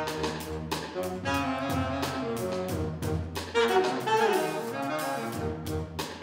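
Saxophone playing a jazz melody over a backing beat with drums and bass. Near the middle a few notes bend up and down in pitch.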